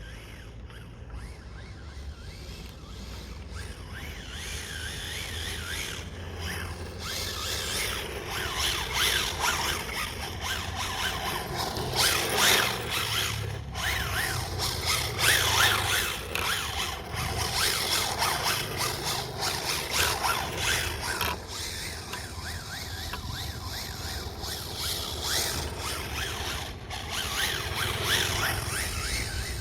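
Rebuilt radio-controlled car being driven: its motor whine and tyre scrub rise and fall over and over as it accelerates, brakes and turns, louder from about seven seconds in.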